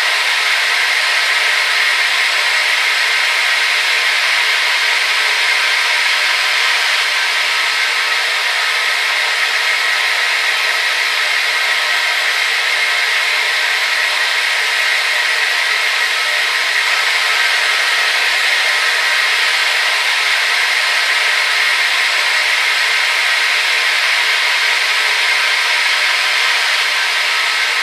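Hair dryer running steadily: an even, unbroken rush of blown air and motor whine with no low end.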